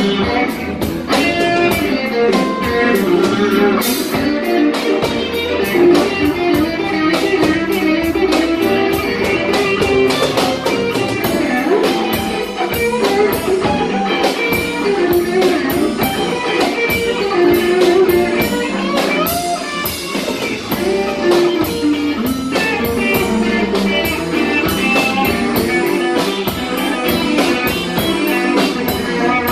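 Live blues band playing, with electric guitar over a steady drum beat.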